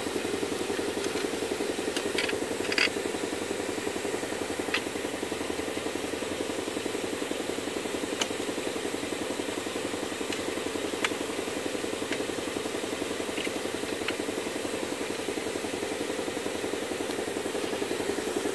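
Steady mid-pitched mechanical hum with a fast, even flutter, with a few light metallic clicks scattered through as the steering column shaft and its nut are worked back into place by hand.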